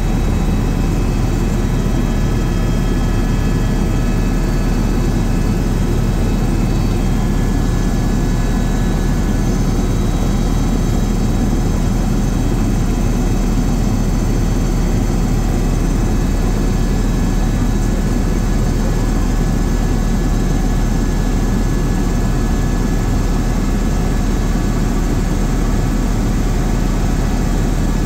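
Helicopter in steady cruise heard from inside the cabin: a loud, unbroken low rotor drone with a steady whine over it.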